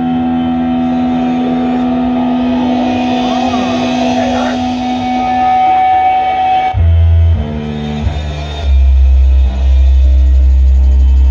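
A live band playing loud fuzz rock on electric guitar and bass. Long held notes ring out at first. About seven seconds in the music breaks into short stop-start stabs, then settles into heavy low notes.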